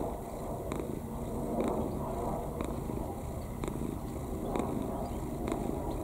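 Domestic cat purring close to the microphone, the purr swelling and easing with its breaths about once a second.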